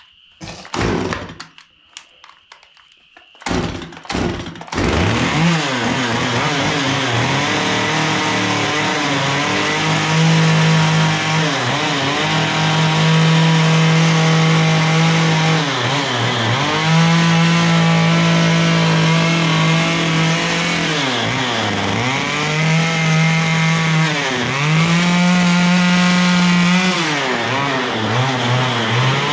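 STIHL chainsaw firing in a few short bursts, then catching and running about five seconds in. It then cuts into an upright softwood log, revving up and holding high for each cut and dropping back between cuts several times. Its chain is a little dull.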